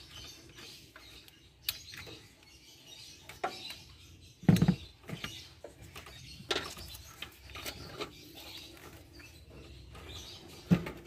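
Scattered light clicks and knocks of hands working a hose and its clamp loose from a throttle body.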